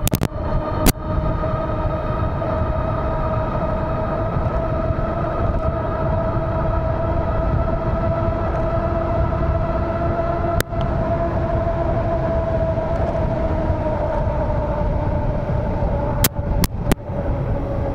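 Ariel Rider Kepler e-bike's electric motor whining steadily at speed, its pitch creeping up and then easing down toward the end, over a heavy rush of wind on the microphone. A few sharp clicks cut through: two early, one in the middle and a quick cluster of three near the end.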